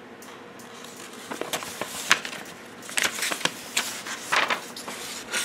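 Paper rustling and crinkling in irregular bursts, starting about a second in, as the pages of a model kit's instruction booklet are handled and turned.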